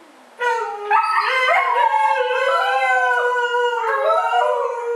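Two Siberian huskies howling together, starting about half a second in. Their long howls waver and step up and down in pitch and overlap each other.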